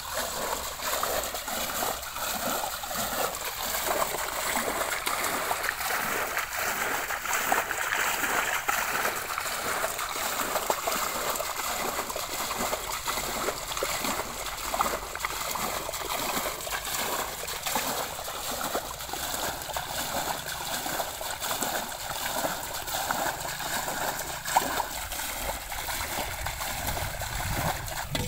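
Muddy water being scooped and flung with a metal bowl by hand, quick regular splashes of about two strokes a second, as a shallow pool is bailed out.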